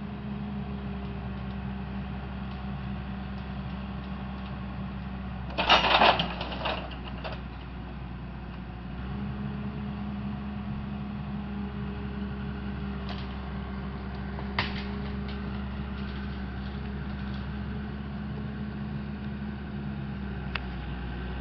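Engine of a tracked logging machine running steadily. About six seconds in comes a loud crash and rattle as the grapple lets a cedar log drop into the swamp, followed by a few sharp knocks.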